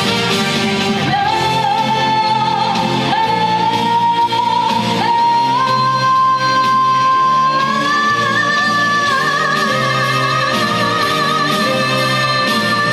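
Live trot song with an amplified band backing track, a female voice climbing in steps to a long held high note with vibrato.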